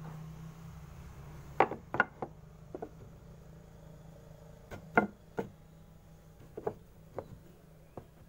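Wooden blocks and boards being handled and set against each other on a bandsaw table: about a dozen sharp wooden knocks and taps in small clusters. A low steady hum underneath fades within the first second or two.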